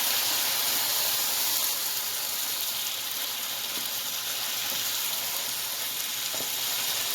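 Pomodoro tomato sauce sizzling steadily in a hot pan, with a single light tap about six seconds in.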